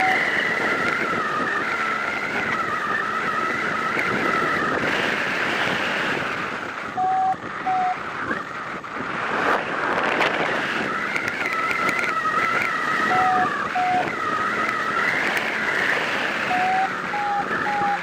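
Strong wind rushing over the microphone of a camera mounted on a hang glider in flight, with a wavering high whistle that fades out mid-way and returns. Short electronic beeps sound in pairs about halfway through and again later, running on in a string near the end.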